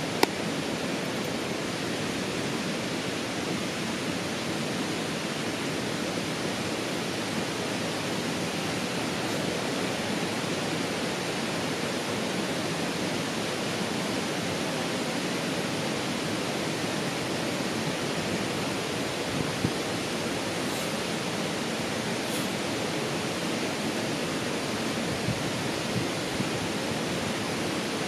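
Steady rush of running water in a creek.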